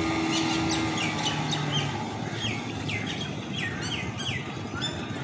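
A bird calling over and over in short falling chirps, two or three a second, over a steady wash of water and wind noise. A distant speedboat's engine hum fades out in the first second or two.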